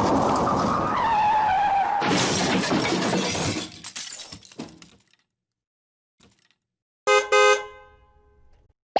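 Car crash sound effect: a falling tyre squeal, then a crash with breaking glass that dies away over a couple of seconds. After a short silence a car horn gives a brief honk.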